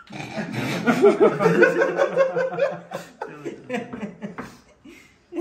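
Men laughing loudly together. A hearty burst of laughter lasts about three seconds, then dies down into shorter chuckles.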